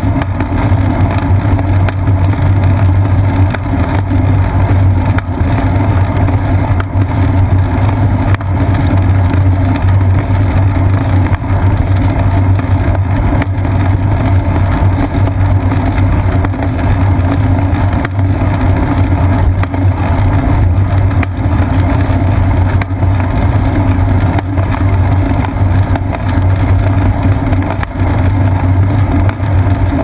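Steady low rumble of wind and road vibration picked up by a seat-post-mounted GoPro Hero 2 on a moving bicycle, with a few faint knocks from bumps in the road.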